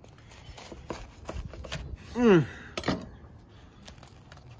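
Knife sawing through the crisp, toasted Parmesan crust of a grilled sandwich on a wooden cutting board, in short crackling scrapes, then the bread crunching as it is pulled apart by hand. About two seconds in comes a brief voiced exclamation, the loudest sound.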